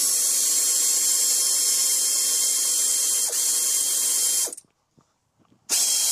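A power ratchet wrench running steadily for about four and a half seconds, then stopping, with a fresh burst starting near the end. It is undoing the bolts that hold the lower spring pan of a Triumph TR4's front suspension.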